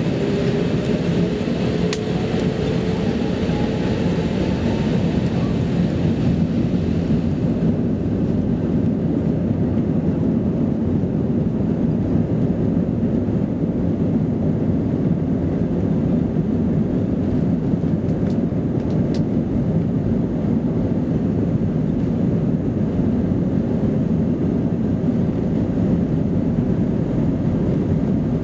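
Airbus A319 jet engines heard from inside the cabin during the takeoff roll: a rising whine as they spool up in the first couple of seconds, then a steady, loud rush of engine and runway noise.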